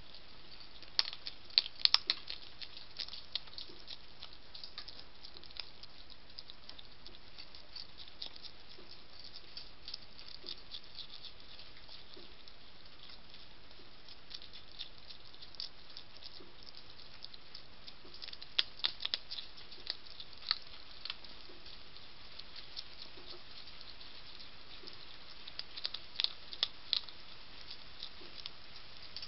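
A European hedgehog crunching dry food from a ceramic plate: bursts of sharp crunches and clicks about a second in, about two-thirds through and near the end, with scattered single clicks between, over a steady hiss.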